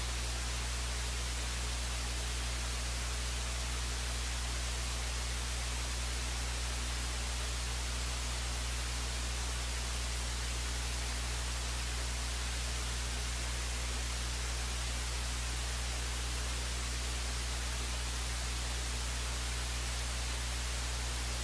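Steady hiss with a low electrical hum underneath, unchanging throughout: the noise floor of an idle audio line with no programme sound on it.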